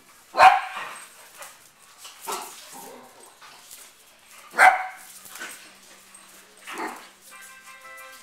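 Dogs barking while they play-wrestle: two loud, sharp barks about four seconds apart, with two softer barks between and after.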